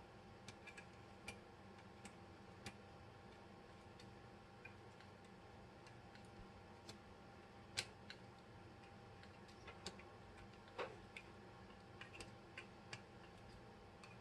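Faint, irregular small clicks and taps of metal parts as a 1911 pistol's grip panels are fitted back on, over near-silent room tone; the two loudest clicks come about 8 and 11 seconds in.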